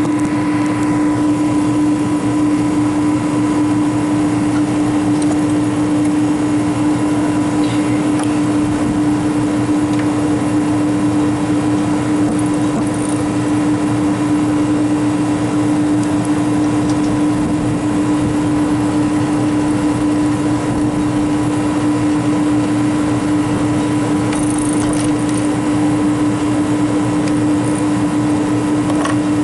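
Walk-in freezer condensing unit running: the compressor and condenser fan give a steady, loud hum with one strong low tone over even fan noise.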